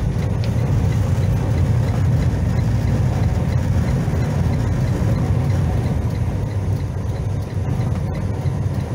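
Inside a truck cab on the highway: the engine and road make a steady low rumble, with the noise of strong wind over it and a faint, regular ticking.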